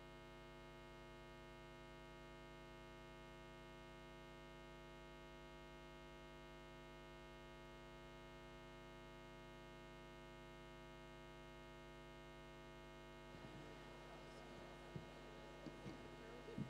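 Near silence holding a steady electrical mains hum, a low buzz with many evenly spaced overtones. Near the end, faint room noise and a few soft knocks come in.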